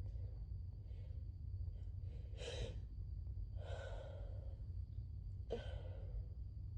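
A person with a head cold breathing audibly in gasps and sighs, three breaths about two seconds apart, over a steady low hum.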